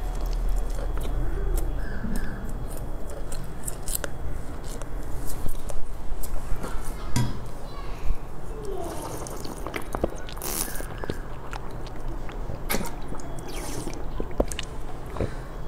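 Close-miked chewing and wet mouth clicks from eating soft sponge cake, then drinking from a plastic bottle with swallowing sounds in the second half.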